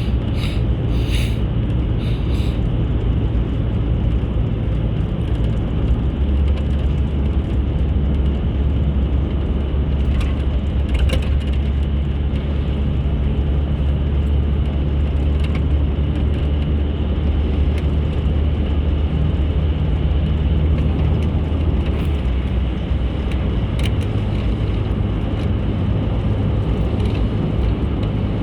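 Steady engine hum and road noise heard from inside a moving car. The low engine drone shifts lower about six seconds in and rises again near the end.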